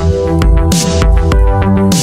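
Background music with a steady electronic beat and pulsing bass.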